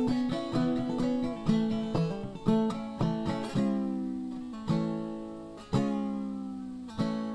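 Background music on acoustic guitar: picked notes at first, then chords struck about once a second and left to ring out.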